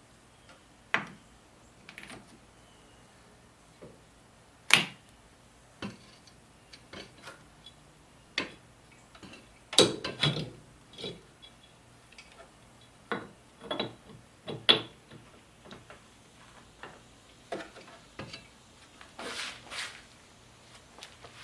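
Hand tools clicking and clanking against metal suspension parts during work on a UTV's front axle: scattered sharp knocks and clicks at an uneven pace, the loudest about five, ten and fifteen seconds in.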